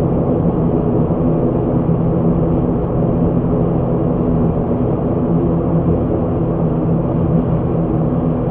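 ATR 72-600's Pratt & Whitney PW127M turboprop engines and propellers running steadily at low power during taxi, heard inside the cockpit as an even drone with several steady low tones.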